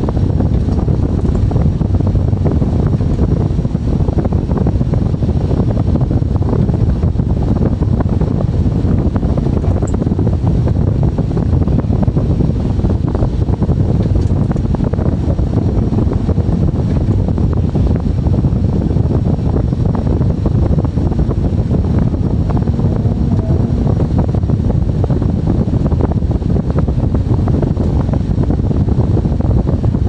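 Excavator running steadily under load, heard from inside its cab, as its rotary drum cutter attachment works in the ground: a dense, even rumble.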